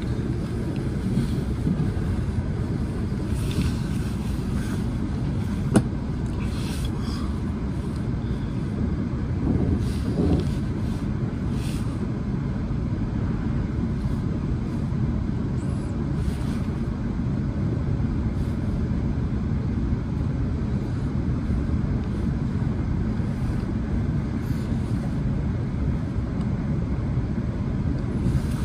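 Steady low rumble of a passenger train running, heard on board, with one sharp click about six seconds in.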